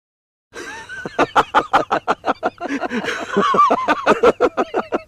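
Laughter in rapid, choppy pulses, starting abruptly about half a second in.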